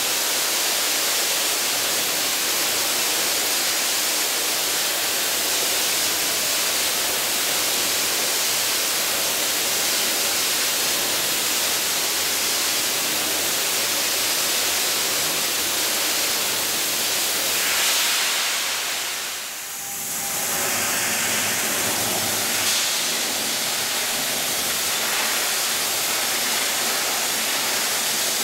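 Abrasive media blaster's nozzle spraying blast media on compressed air against a 1965 Chevy C-10's sheet metal, stripping the paint down to bare metal: a steady, loud hiss. It drops away briefly about two-thirds of the way through, then picks up again.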